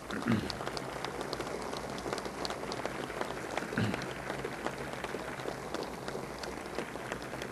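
Large crowd breaking into applause: dense, steady clapping that eases off a little near the end.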